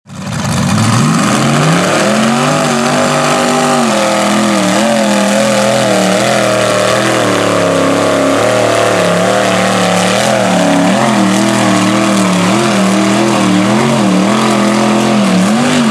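A lifted mud truck's engine on tractor tires, revving up in the first couple of seconds and then held at high revs, its pitch wavering up and down as the tires churn through deep mud.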